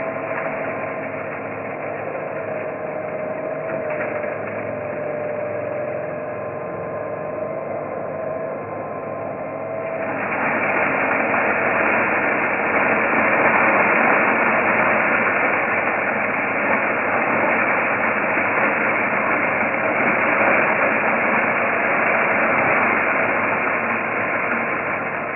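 Numatic Henry Quick cordless vacuum cleaner running with a steady motor whine and airflow hiss. About ten seconds in, it gets louder and brighter and stays that way.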